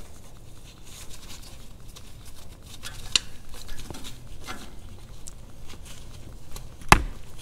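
Light clicks and rustling of gloved hands handling a transmission cooler line fitting and tools, with a sharper click about three seconds in and a loud sharp click near the end.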